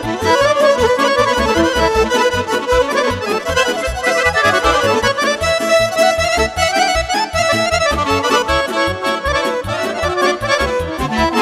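Instrumental break of Romanian party music: a Roland digital accordion plays the lead melody over the keyboard's steady bass beat, with the violin playing alongside.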